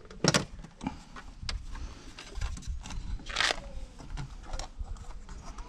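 Scattered clicks and knocks of interior plastic trim being pried loose with a trim tool, with a louder knock just after the start and a short scraping rasp about three and a half seconds in.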